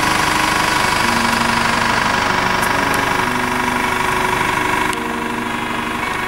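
Four-wheel-drive engine idling steadily.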